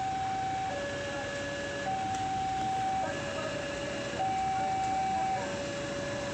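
Railway level-crossing warning siren sounding a steady two-tone alarm, switching between a higher and a lower tone about every second, as the crossing signals an approaching train.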